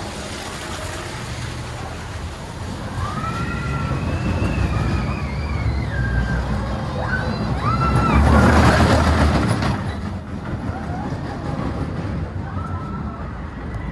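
Vekoma junior roller coaster train rumbling along its steel track, with riders giving several high, drawn-out yells through the middle and a louder rushing surge about eight seconds in.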